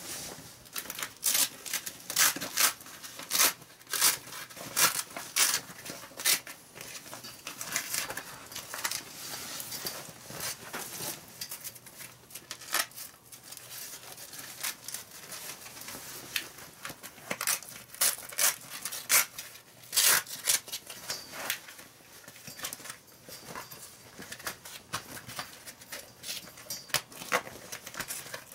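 Velcro straps on a carport's canvas cover being ripped open and fastened around the metal frame poles: many short ripping sounds at irregular intervals, thickest in the first half.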